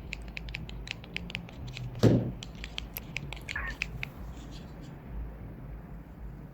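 A quick run of light clicks and taps, several a second, with one louder thump about two seconds in, over a low steady hum; the clicks thin out after about four seconds.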